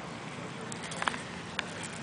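African spurred (sulcata) tortoise chewing raw corn on the cob, with a few sharp crunches of kernels and cob, the loudest cluster about a second in.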